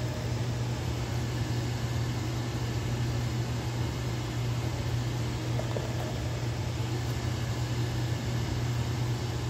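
Steady low hum over an even hiss from a running fan.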